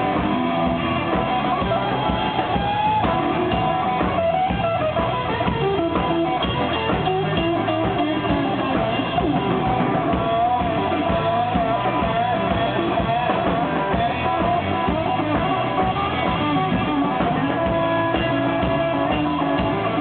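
Live rock band playing at a steady, loud level: electric guitar lines over a drum kit and bass guitar.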